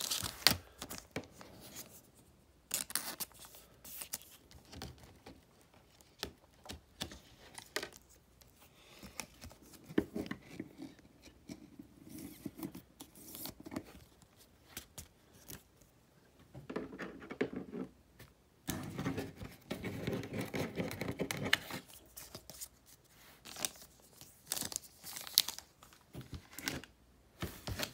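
Thin plastic card sleeves and their packet crinkling and rustling in the hands, in short bursts with small clicks, as a trading card is slid into a sleeve and a clear plastic holder.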